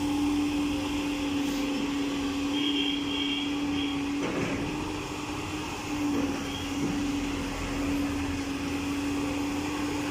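Long-reach excavator's diesel engine and hydraulics running steadily as it swings its boom to dredge the canal, a continuous hum with one constant tone.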